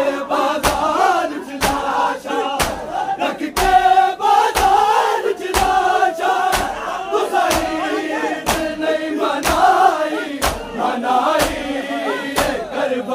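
A crowd of male mourners chanting a noha together while beating their chests in unison (matam), a sharp collective slap landing about once a second.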